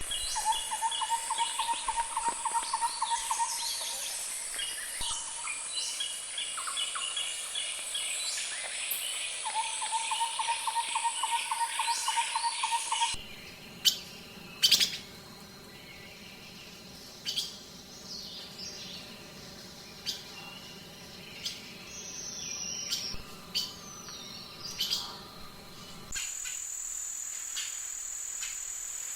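Forest birdsong: several birds singing, one repeating a rapid trill, over a steady high insect drone. About halfway through, the sound cuts abruptly to scattered single bird calls. Near the end it changes again to a steady, high-pitched insect trill.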